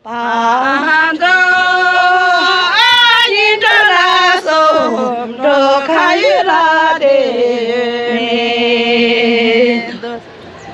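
A woman singing a slow song with long held notes and quick ornamental turns, breaking off about ten seconds in.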